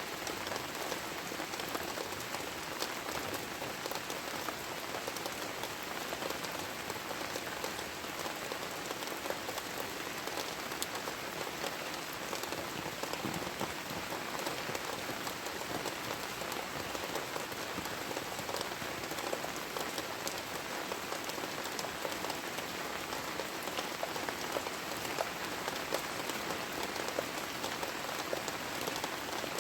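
Heavy rain falling steadily: a dense patter of individual drops hitting surfaces over a constant hiss.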